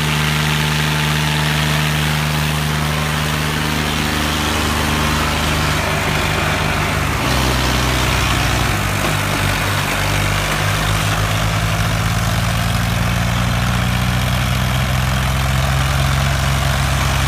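Diesel engines of a Farmtrac 60 EPI and a Swaraj 744 tractor running hard under load as the two tractors pull against each other in a tug of war. The engine note shifts about six seconds in.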